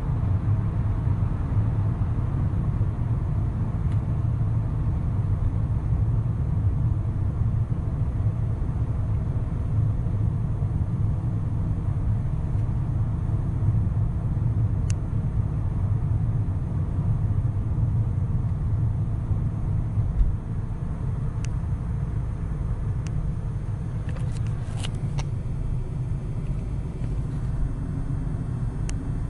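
Fiat Stilo 1.2 four-cylinder petrol engine and road noise heard inside the cabin while driving: a steady low drone that drops slightly about two-thirds of the way through, with a few faint clicks near the end.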